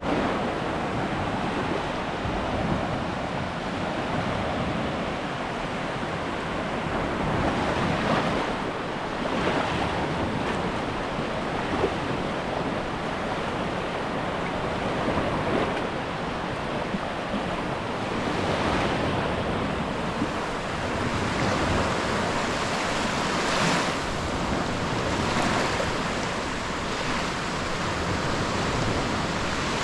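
Sea waves washing onto the beach, a steady surf with a swell breaking every few seconds, and some wind on the microphone.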